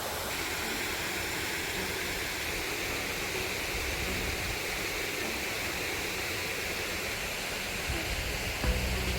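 A waterfall rushing steadily, an even wash of falling water, with a few low bumps near the end.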